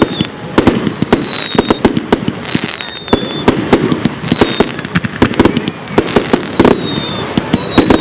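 Fireworks display: a rapid barrage of bangs and crackles from bursting aerial shells, with repeated high whistles that waver and fall slightly in pitch.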